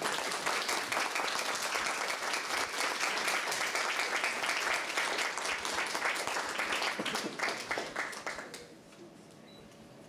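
Audience applauding after an opening speech, a dense patter of many hands clapping that fades out about eight and a half seconds in.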